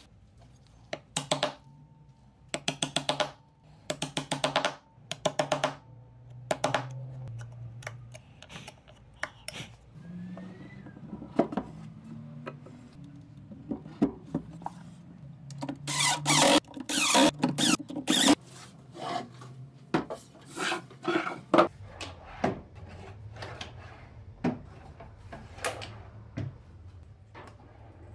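Workshop assembly sounds: sharp wooden knocks and clicks in short, quick clusters, with wood sliding and rubbing in between, as a solid wood top is fitted onto a painted wooden chest of drawers. The busiest, loudest run of knocks comes about halfway through.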